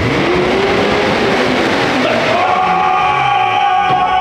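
Music with a singing voice, loud and steady, with long held notes.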